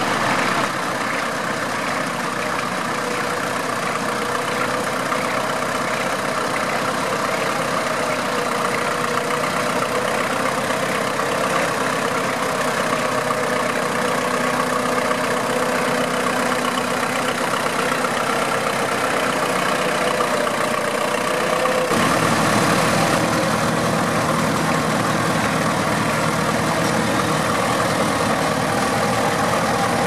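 Vintage tractor engine running steadily as it pulls a plough through stubble. About two-thirds of the way through the sound steps up a little louder and fuller.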